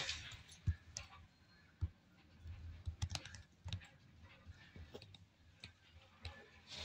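Faint, irregular clicks and light knocks from handling and moving about inside a small yacht's cabin, with a few soft low thumps.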